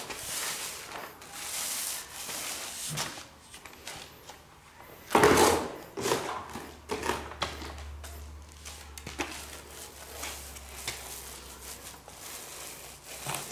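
Paint roller on an extension pole rolling wet enamel paint over rough concrete, a soft rubbing hiss with small scrapes. About five seconds in there is one louder scuff, followed by a low hum that lasts a few seconds.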